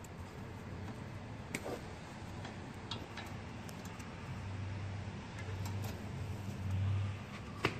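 Needle-nose pliers clicking and ticking against the metal of a car's front suspension, a few sharp clicks spaced seconds apart with the loudest near the end. A low hum swells in the second half.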